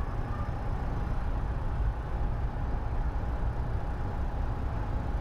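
Steady low rumble of street traffic, with a faint constant hum above it.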